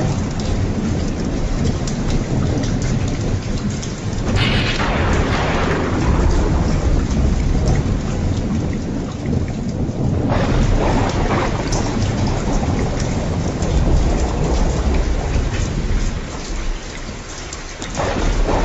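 Heavy rain falling steadily while thunder rumbles low underneath. A sharper, brighter burst of thunder comes about four seconds in and fades over several seconds, and another near the end.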